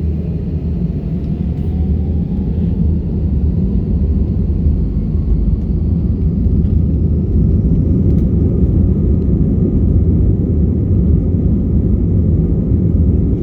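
An airliner's engines during takeoff, heard from inside the cabin: a loud low rumble that builds steadily, with a faint whine rising in pitch.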